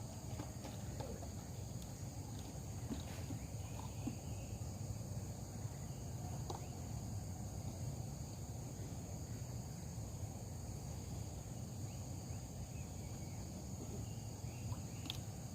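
Steady chorus of insects such as crickets, a constant high-pitched chirring on several pitches, over a low steady rumble, with a few faint ticks.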